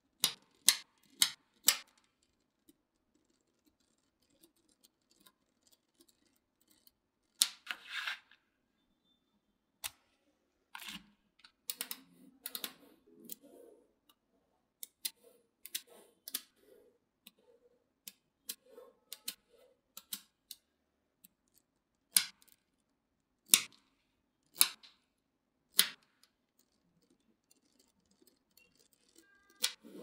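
Small magnetic balls clicking together as sheets of them are handled, bent and set down: sharp single clicks at irregular intervals, with a few short rattling clusters as the balls shift against each other.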